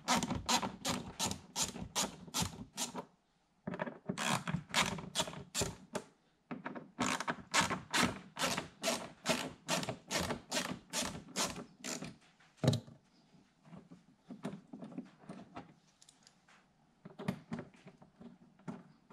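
Rapid even clicking of a ratcheting hand tool backing out screws from a car's front wheel-well liner, about four or five clicks a second in runs of a few seconds. One louder knock comes about two-thirds of the way through, then fainter scattered clicks.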